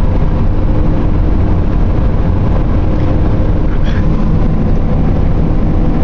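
Steady car cabin noise while driving at highway speed: an even, loud low rumble of tyres on the road and the engine.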